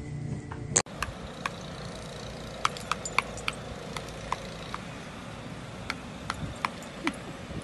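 Sharp metallic clinks at irregular intervals, over a dozen in a few seconds, as a dog bites at a metal garden wind spinner and knocks its pole, over a steady background hiss.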